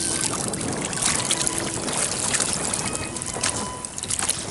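Choppy water slapping and splashing irregularly against a kayak's hull.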